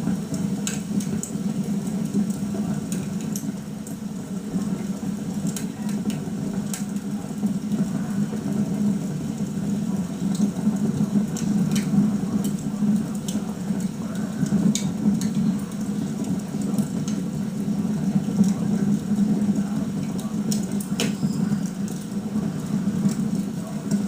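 Crackling log fire from a televised fireplace broadcast: irregular sharp pops and snaps over a steady low hum.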